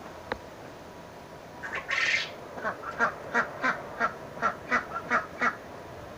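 Domestic ducks quacking: a quick run of about ten short quacks, about three a second, starting about halfway in.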